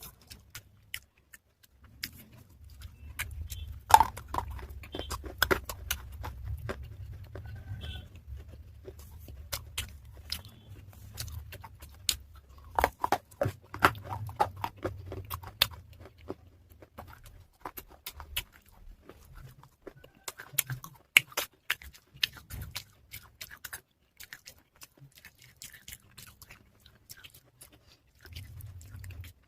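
Close-up chewing and crunching of water-soaked pieces of a baked clay pot (matka): irregular crisp crunches that come in clusters, with quieter stretches between.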